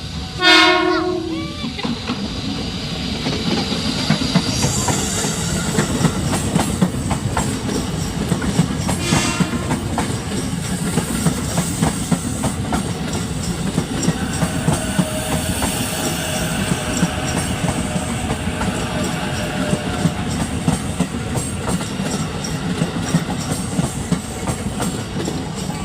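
A train horn sounds one short blast about half a second in, then the train runs on with a steady rumble and a continual clatter of wheels over the rails.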